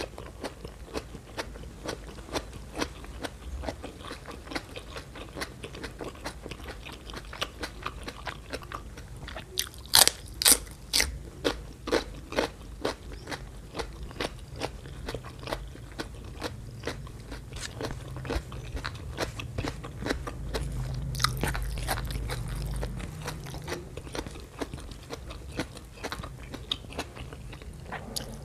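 Close-miked mouth chewing with frequent small wet clicks, and a run of loud crisp crunching bites about ten seconds in, from a slice of raw cucumber.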